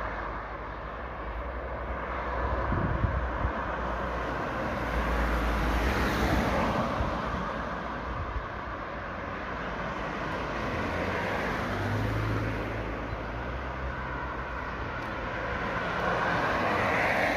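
Road traffic: cars drive past one after another, their tyre and engine noise swelling and fading as each goes by.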